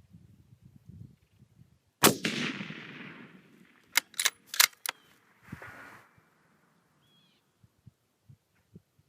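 A single shot from a 6mm Creedmoor bolt-action rifle with a muzzle brake, about two seconds in, with a long echo that dies away over about a second. About two seconds later come four quick sharp clicks as the bolt is cycled to chamber the next round.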